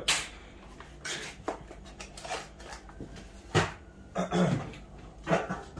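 Rummaging through a cardboard box of hardware for finish nails: a series of short knocks, rustles and clatters as things in the box are moved about.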